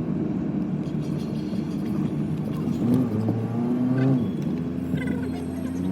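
A car's engine running steadily, with a low hum and a brief rise and fall in pitch about three to four seconds in.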